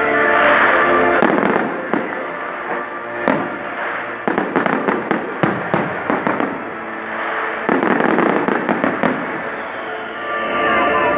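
Fireworks going off: sharp bangs and clusters of rapid crackles, with music playing throughout.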